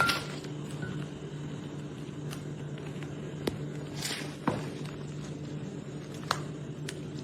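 A steady low mechanical hum with a few sharp clicks and taps scattered over it.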